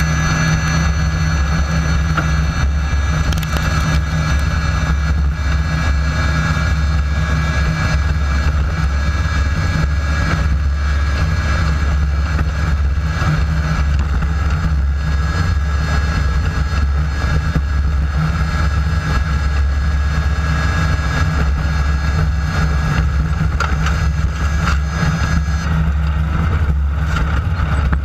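Class 9 desert race buggy's air-cooled Volkswagen engine running steadily at speed, heard onboard.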